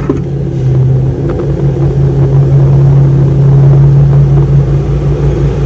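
Cordless drill running steadily at one speed, a constant motor whine, with its bit pressed against the plastic front grille and no pilot hole drilled yet.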